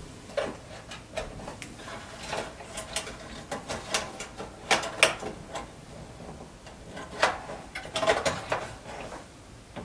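Irregular clicks, taps and light scrapes of fingers working the perforated sheet-metal shield and circuit board of a Samsung DLP TV's chip assembly, trying to free a part held in by a clip. Sharper knocks come about five and seven seconds in, with a quick cluster of them near eight seconds.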